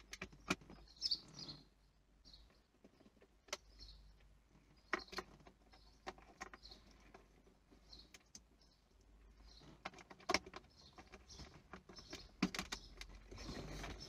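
Scattered small plastic clicks and taps from handling the back of a Mercedes R107 instrument cluster, as bulb holders and plugs are seated and checked.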